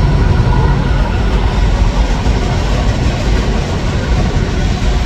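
A train rumbling past, steady and loud, blended with the constant roar of falling water from a nearby waterfall.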